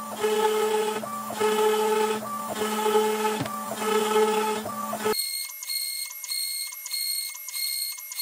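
Sped-up sound of a Shapeoko CNC with a Makita router cutting melamine with a 1/4-inch upcut bit, making many shallow passes along a slot. A steady hum runs under a whine that swells and fades about once a second, once per pass. About five seconds in the sound jumps higher in pitch and the passes come about twice a second.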